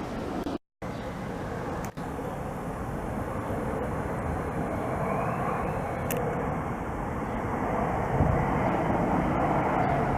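Jet airliner engines approaching, a rushing rumble that grows steadily louder.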